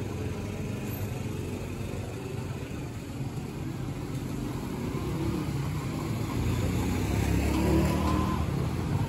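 City street traffic: vehicle engines and tyres running steadily, with a car or motorbike engine growing louder in the second half as it draws near, loudest about eight seconds in.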